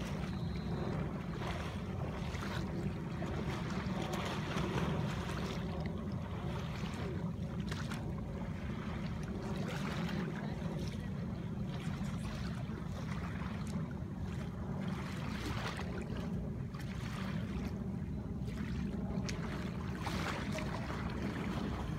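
Wind buffeting the microphone as a steady low rumble, over shallow water sloshing and splashing around a wading person.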